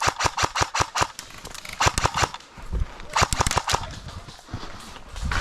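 Airsoft guns firing in rapid bursts of sharp cracks, about eight shots a second. There are three bursts: one running until about a second in, a short one at about two seconds, and another at about three and a half seconds.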